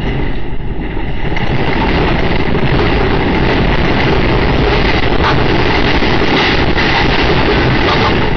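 Magnitude 6.2 earthquake shaking a house: a loud, deep, continuous rumble with knocks from the shaking room. It swells about a second in and then holds steady.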